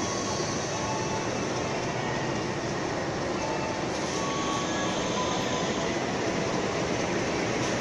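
Passing train cars rolling by at close range: a steady rumble of wheels on rail, with faint, brief wheel squeals now and then.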